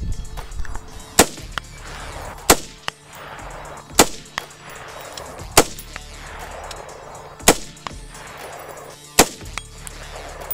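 AR-15 rifle in .223 Wylde firing 36-grain Barnes Varmint Grenade loads: six rapid shots about a second and a half apart, each a sharp crack with a short ring-out.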